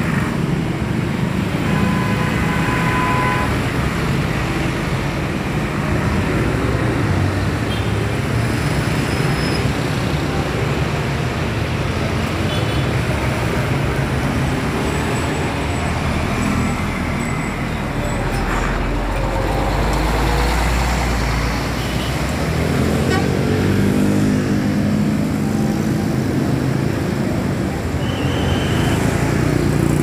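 Diesel coach engines running with traffic noise, steady throughout. About two seconds in comes a short burst of several steady tones sounding together, and a deep rumble swells for a few seconds past the middle.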